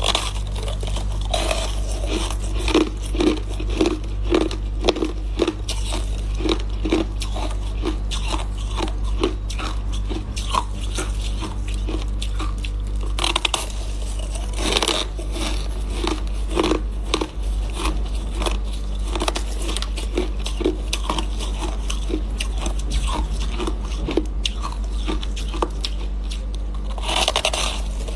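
Close-up crunching and chewing of frost-covered coloured ice chunks: a steady run of crisp bites and crunches, several a second.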